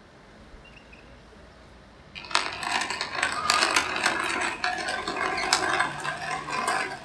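A dense clatter of many small knocks and rattles, starting suddenly about two seconds in and lasting about five seconds, after a faint hiss.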